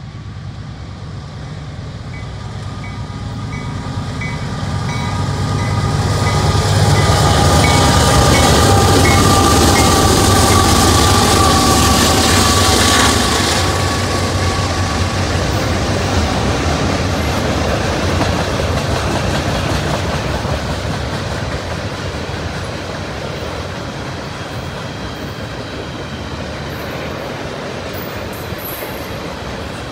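Union Pacific freight train headed by three diesel locomotives approaching and passing close by, loudest about a third of the way in as the engines go past. It then eases to a steady rolling noise as a line of tank cars goes by.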